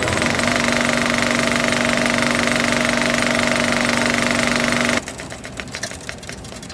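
A loud, steady mechanical whirring drone with a fine rapid flutter that cuts off suddenly about five seconds in, leaving quieter scattered crackling clicks.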